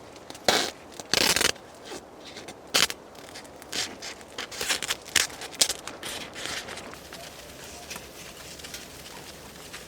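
Tent fabric crinkling and rustling in short, irregular bursts, the loudest in the first three seconds, then a steady faint hiss.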